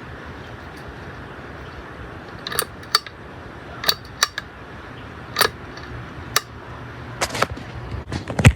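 Ceiling fan running with a steady whoosh and low hum, with a series of sharp, irregular clicks over it from about two and a half seconds in, the loudest near the end.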